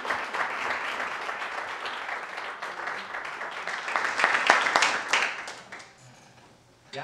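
Audience of a few dozen people applauding, a dense clatter of clapping that swells briefly and then dies away about six seconds in.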